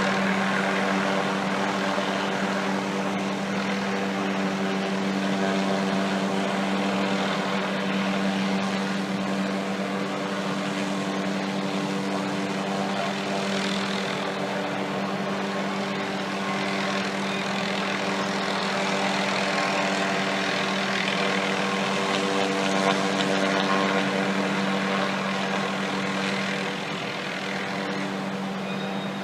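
Helicopter engine and rotors running steadily, a constant hum with a clear pitch over a rushing noise.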